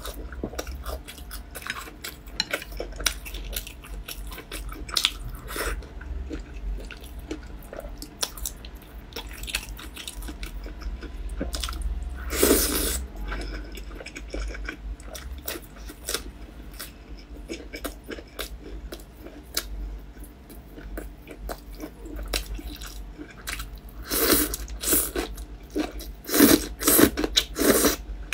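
Close-miked chewing and biting of fried dough stick (youtiao), wet mouth clicks with crisp crunches. There is a louder bite about halfway through, and a run of louder chewing near the end.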